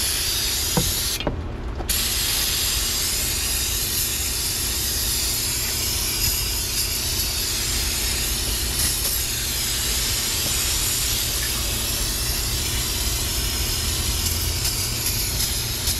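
Aerosol cleaner can spraying in a long, steady hiss, with one short break about a second in.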